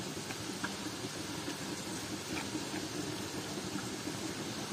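Onions and gram flour frying in oil in a small pan, a steady sizzle as a metal spoon stirs, with a couple of faint spoon scrapes.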